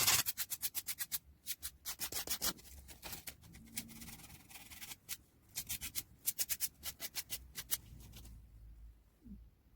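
Hand sanding: quick back-and-forth strokes of abrasive rubbing on a part, several strokes a second in runs with short pauses, stopping shortly before the end.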